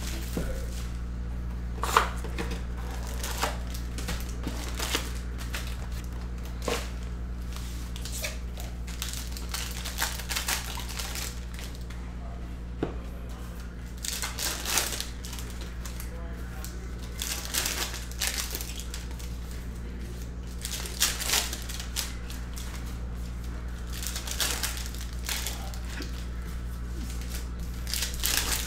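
Plastic trading-card pack wrappers being torn open and crinkled by hand, in short irregular bursts of crackling every second or two, over a steady low hum.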